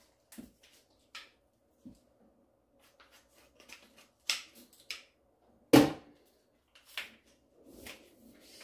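Scattered sharp clicks and crinkles of a plastic food packet and kitchen things being handled on the worktop, with one loud knock about six seconds in.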